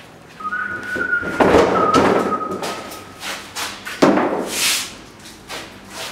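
A steady high tone held for about two and a half seconds, then a wooden door being pushed open with a sudden loud scraping rush about four seconds in.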